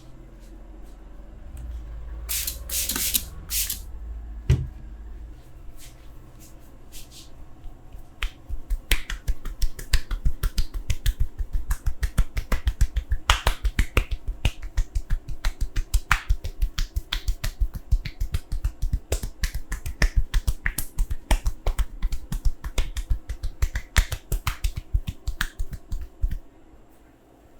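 Hands striking the body in a percussive massage: a fast, steady run of slaps and taps, several a second, which stops near the end. A few sharp snap-like cracks come a couple of seconds in.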